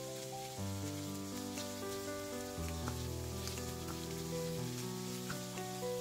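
Background music of slow sustained chords that change about every two seconds, over the faint sizzle of shrimp frying in oil in a pan, with a few light ticks as a wooden spoon turns them.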